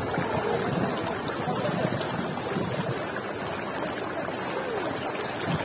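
Shallow, clear river water running over pebbles and stones, a steady rushing hiss of flowing water.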